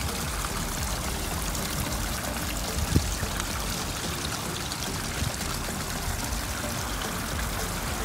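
Small fountain jets spraying and splashing steadily into a garden pond, a continuous water sound, with a brief bump about three seconds in.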